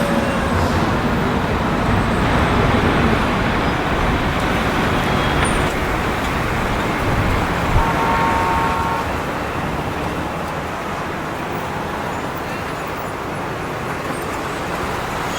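Steady wash of city traffic noise, with a brief high tone, like a distant horn, about eight seconds in.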